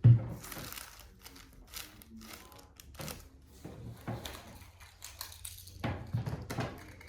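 A sharp thump, then scattered clicks, knocks and rustling from handling in a small room, with a brief flurry of knocks near the end.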